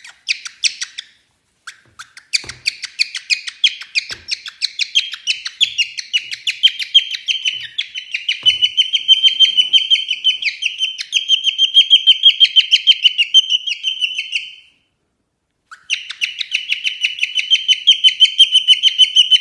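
A small bird chirping in a rapid, steady run of short, sharp notes, several a second, growing louder. It breaks off for about a second before starting again.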